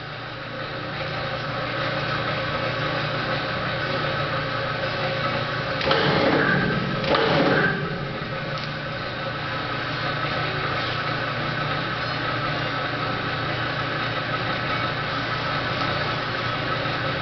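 Electric chain hoist motor running steadily as it lifts a tank engine's crankshaft, with two short, louder noisy bursts about six and seven and a half seconds in.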